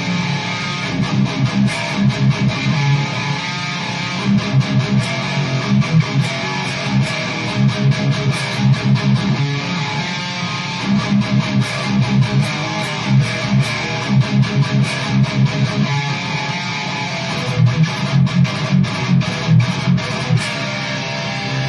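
Distorted electric guitar playing chugging, rhythmic riffs through a modified Amazon Basics overdrive pedal, a Tube Screamer-style circuit, with short gaps between phrases.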